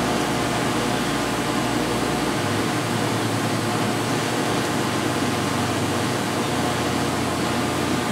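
Steady whir and hum of a shop fan running, even throughout with no breaks or impacts.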